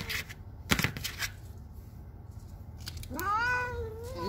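A cat meows once, a long meow about three seconds in that rises, holds and dips slightly at the end. A few sharp clicks come before it, in the first second and a half.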